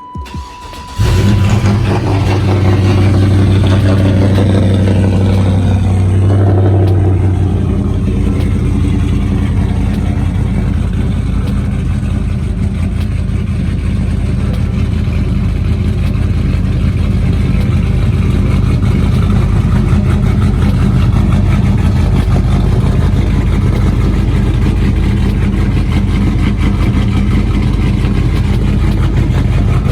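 LS V8 in a Chevy GMT400 pickup starting about a second in and running at a fast idle for several seconds, then settling to a lower, steady idle. The engine is running with a replaced spark plug wire; the old one had burned through on the exhaust manifold and caused a misfire.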